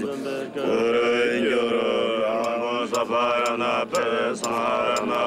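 Tibetan Buddhist ritual chanting by lamas, several voices overlapping in long, wavering lines, with short sharp strikes scattered through.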